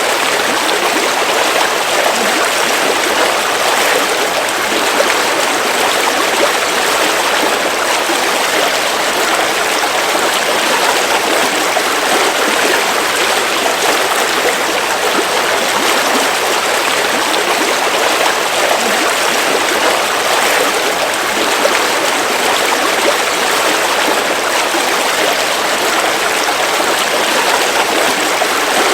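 River water flowing over rocks, a steady even rush and babble of a stream.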